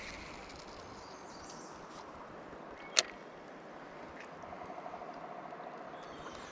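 River water running steadily over a shallow stretch, with one sharp click about three seconds in and a brief fast rattle a little later.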